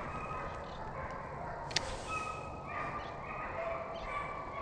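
A pack of hunting hounds baying on a deer drive: several drawn-out cries at different pitches, overlapping. There is one sharp click about two seconds in.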